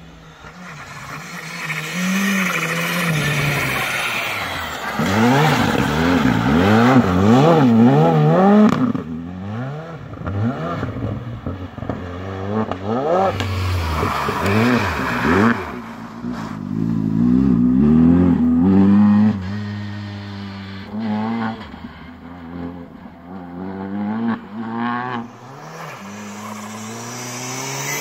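Skoda Fabia R5 rally car's turbocharged four-cylinder engine revving hard, its pitch rising and falling quickly as the throttle is worked and gears change. It is loudest twice, about a quarter and about two-thirds of the way through, and eases off in between.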